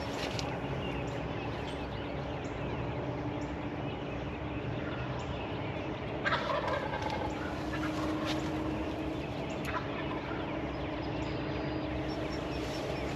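Wild turkey gobbler gobbling at daybreak, one loud rattling gobble about six seconds in over a steady background of outdoor sound.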